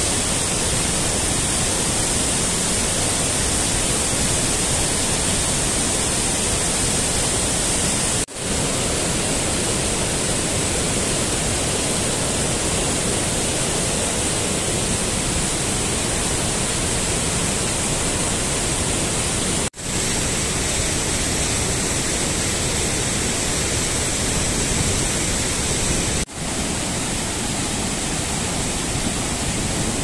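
Steady, loud rush of a waterfall and mountain stream, an even hiss of falling water. It cuts out for a split second three times, about a quarter, two-thirds and seven-eighths of the way through.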